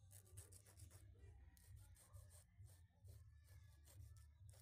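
Emery board rasping across dry skin on the toes in quick, repeated short strokes, faint, over a steady low hum.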